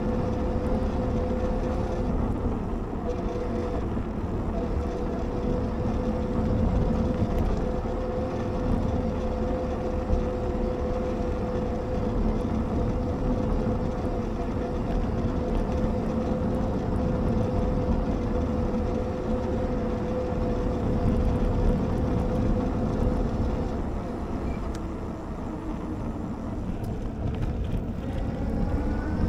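Electric bike's rear hub motor whining at one steady pitch over a rumble of wind and road noise. The whine rises in pitch near the end as the bike speeds up.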